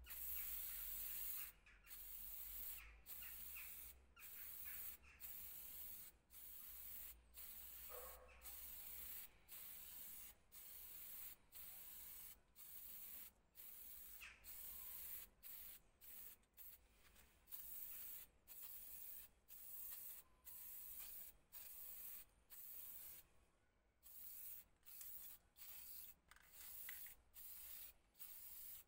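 Aerosol spray paint can spraying grey paint onto a metal part in short repeated bursts of hiss, about one to two a second.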